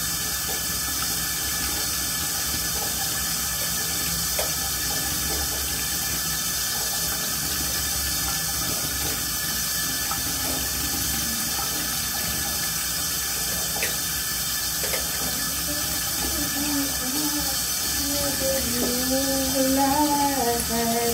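Water running steadily from a bathroom tap, an even rushing hiss. From about two-thirds of the way through, a person's voice joins in, singing a wavering tune.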